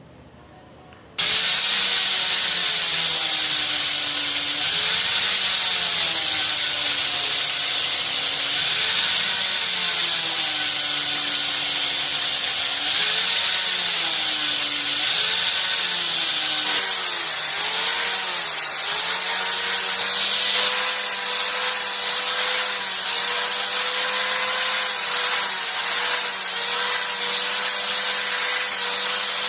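An electric power tool starts suddenly and runs continuously, working on the saw's metal or wood parts. Its motor pitch wavers up and down as it works under load, then holds steady for the last third.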